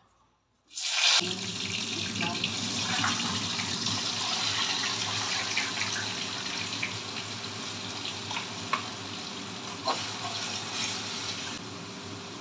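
Hot oil in a kadai sizzling as a bay leaf and then more ingredients from a jar go in. The sizzle starts suddenly about a second in and keeps going with a few sharp pops, over a low steady hum.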